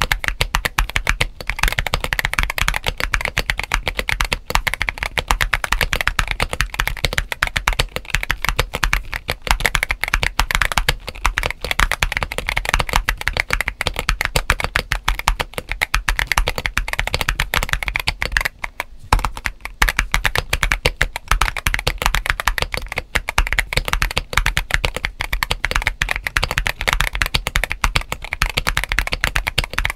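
Fast, continuous typing on a GAS67 mechanical keyboard with Gazzew U4T tactile switches and MG White SA-profile ABS keycaps, modded with an IXPE sheet and polyfill stuffing for a thocky, crunchy sound. There is one brief pause in the keystrokes a little past halfway.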